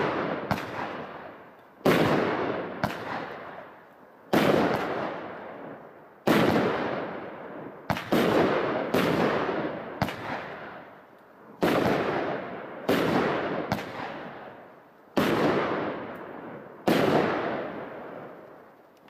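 Aerial fireworks from a Brothers Pyrotechnics kit bursting overhead: a dozen or so sharp bangs, one every second or two and sometimes two close together, each trailing off in a long rolling echo.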